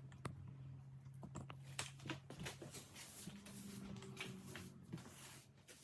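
Broom sweeping a floor: a run of short, soft brushing strokes over a steady low hum.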